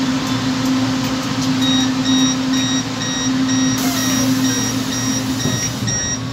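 Door-closing warning beeps of an LRT Line 2 train: an even series of high electronic beeps, about two a second, starting about a second and a half in, over the steady hum of the train standing at the platform.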